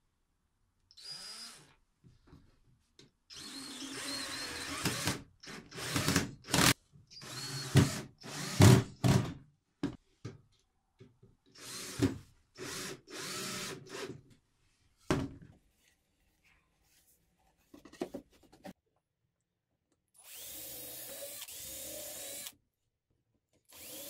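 Cordless drill-driver running in a string of short bursts with pauses between, driving screws through a plywood wall into its framework and drilling pilot holes. The loudest bursts come about six to nine seconds in, and a longer, steady run comes near the end.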